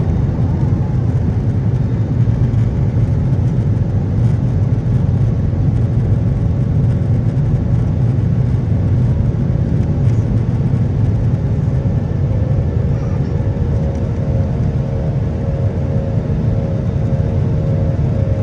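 Steady low rumble of engine and airflow noise inside the cabin of an Airbus A320-200 in flight. A faint steady tone joins about twelve seconds in.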